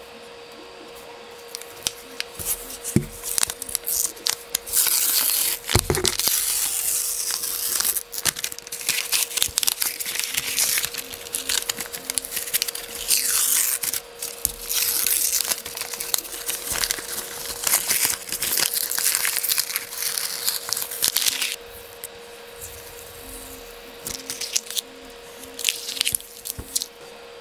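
Brown packing paper being unwrapped and torn by hand, crinkling and rustling in long bursts that stop about three quarters of the way through, with a couple of knocks from parts being handled in the first few seconds.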